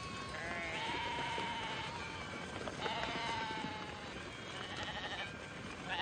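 A flock of sheep bleating, several long, wavering bleats one after another with short gaps.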